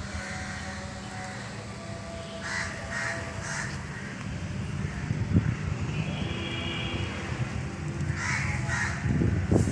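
Crow cawing: three short caws about two and a half seconds in and another couple near the end, over a steady low rumble.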